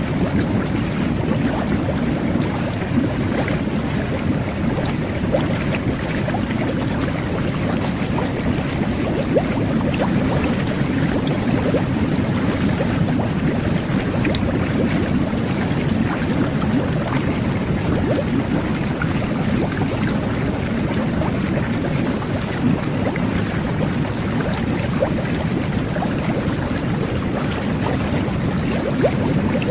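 Jet bath running: water churning and bubbling steadily from the whirlpool jets, a dense low gurgle with small splashes and pops throughout.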